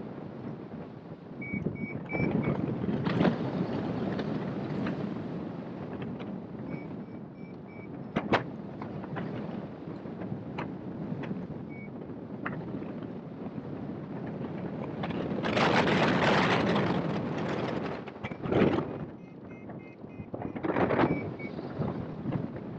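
Air rushing over the microphone of a hang glider in flight, swelling in gusts and loudest for a couple of seconds past the middle. A few short runs of quick high beeps, three or four at a time, come through the wind: a flight variometer's chirps, which signal climbing air.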